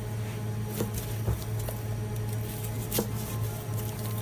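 Large butcher's knife slicing between pork ribs, the blade knocking on the wooden block a few times with short sharp taps, the clearest about three seconds in. A steady low hum runs underneath.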